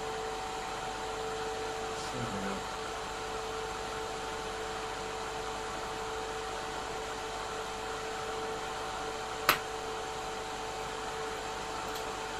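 Hot air rework station blowing at 450 °C together with a fume extractor fan: a steady airy hiss with a constant hum, heating the solder on a failed TVS diode on a hard drive's circuit board. A single sharp click about nine and a half seconds in.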